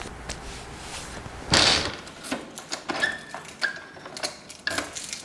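A loud thump about a second and a half in, then a bunch of keys jingling and clicking against a front-door lock as the door is locked.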